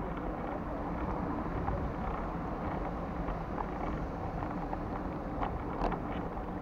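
Steady outdoor street ambience: wind rumbling on the microphone over the hum of road traffic, with a few faint clicks near the end.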